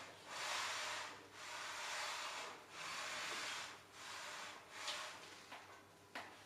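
Hand strokes of metal rubbing on the guideway of a surface grinder, a little over a second each, four in a row and then fainter, shorter scrapes with a light click near the end.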